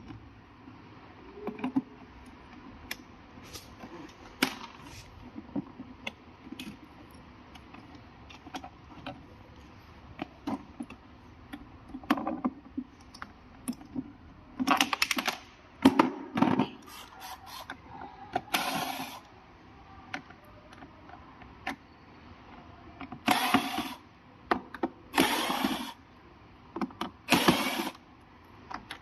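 Small mechanical clicks and rattles of parts and tools being handled, then several short, loud rasping strokes of about half a second to a second each in the second half.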